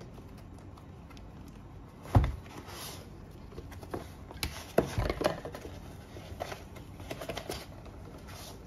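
Objects being handled, making scattered clicks and knocks. There is a louder knock about two seconds in and a quick run of knocks around five seconds.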